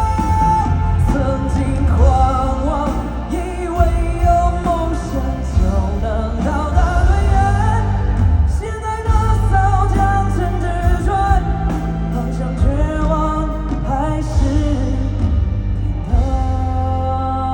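Pop-rock song played by a band with heavy bass, with a singer's voice carrying long held and sliding notes but no clear words.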